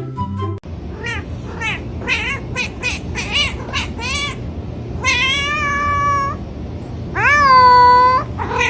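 A cat meowing: a quick run of about nine short meows, then two long drawn-out meows, the last and loudest one rising and then held for about a second.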